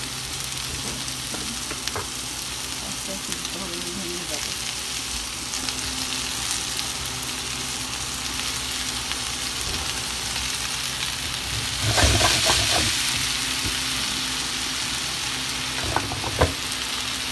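Butterfish and sliced vegetables frying in hot oil in a pan: a steady sizzle, with a spatula scraping and knocking against the pan as the fish are moved, loudest about twelve seconds in. Two sharp taps of the spatula near the end.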